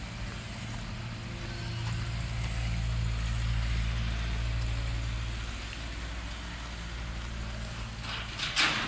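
Low, steady engine rumble of a motor vehicle or site machine, swelling over the first few seconds and then easing off, with a brief noisy rustle near the end.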